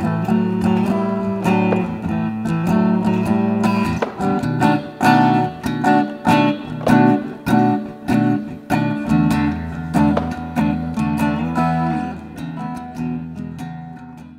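Guitar music: chords struck in a steady rhythm, fading out near the end.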